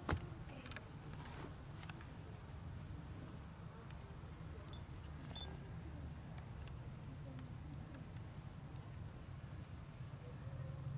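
Steady high-pitched insect drone, with a low rumble underneath and a single sharp knock at the very start.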